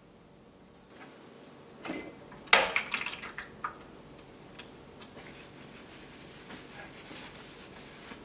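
Hard kitchenware clinking and clattering: a knock about two seconds in, then a loud burst of several quick strikes with a short ring, followed by fainter handling sounds.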